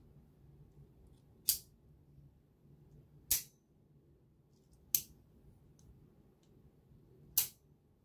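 Bolt-action mechanism of an anodized tactical pen worked by hand, giving four sharp clicks at uneven intervals of about one and a half to two and a half seconds.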